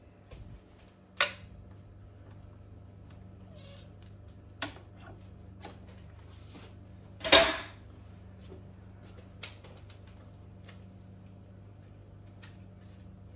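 Cake-making utensils and bakeware knocking and clattering: a few scattered knocks, the loudest about seven seconds in, over a steady low hum.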